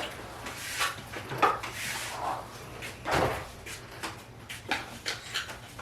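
Scattered light knocks and clicks of kitchen things being handled, with a louder knock about three seconds in.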